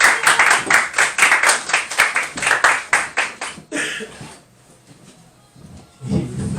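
Clapping from a small audience, distinct claps about four to five a second, fading out about four seconds in. A brief low voice sound comes near the end.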